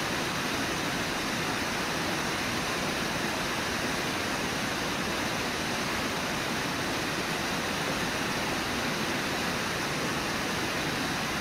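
Steady rush of river water, an even hiss with no separate splashes standing out.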